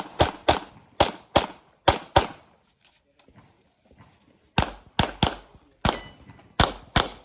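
Handgun shots from an IPSC match stage, fired mostly in quick pairs. There is a gap of about two seconds near the middle, then the pairs resume.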